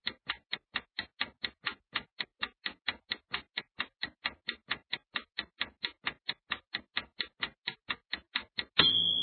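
Countdown-timer ticking sound effect: sharp, even clock-like ticks, about four a second, marking the seconds running out. Near the end the ticking stops and a short buzzer-like tone sounds as the time runs out.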